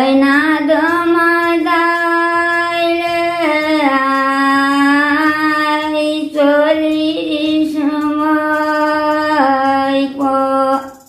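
An elderly woman sings a Nepali thadi bhaka folk tune alone, without accompaniment, in long drawn-out notes. She takes a short breath about six seconds in, and the phrase ends just before the close.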